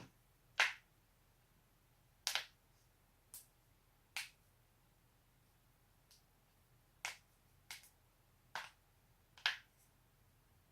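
A person cracking their own neck: about eight sharp, single joint pops at irregular intervals, some of them doubled. The loudest come about half a second in and near the end.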